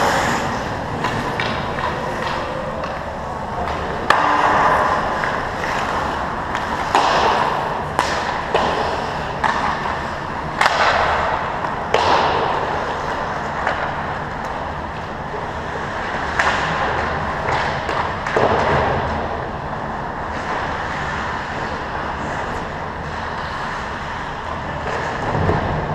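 Ice hockey skate blades scraping and swishing on rink ice in repeated strokes, with a few sharp knocks of sticks and puck.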